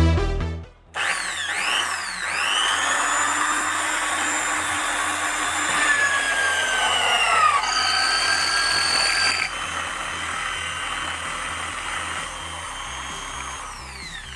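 Corded electric drill mounted in a homemade drill press stand, drilling a hole through a small metal plate. The motor whine rises as it spins up about a second in, shifts in pitch as the bit bites into the metal, and winds down near the end.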